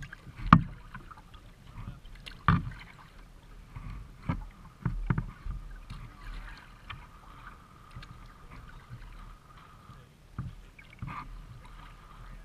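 Paddling a plastic kayak: irregular paddle strokes with sharp knocks and splashes, the loudest about half a second in and another about two and a half seconds in, over faint water noise.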